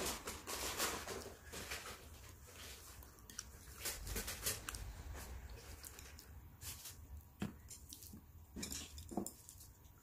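Scattered light clicks and taps of chopsticks on a plastic plate and bowl, with soft rustling, loudest in the first second and sparser after.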